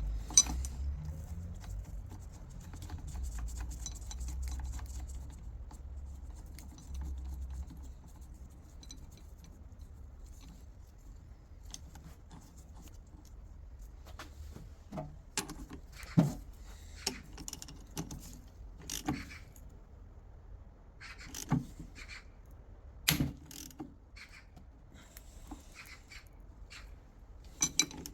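Small metal gearbox parts clinking and knocking as they are handled and set down, a dozen or so separate sharp clicks mostly in the second half, over a low rumble early on.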